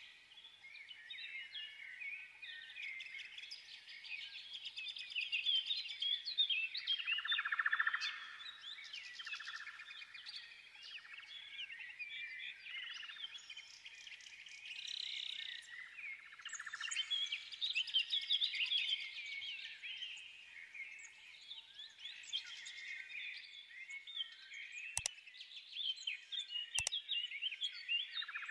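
A dense chorus of small birds chirping and twittering, with two sharp clicks near the end.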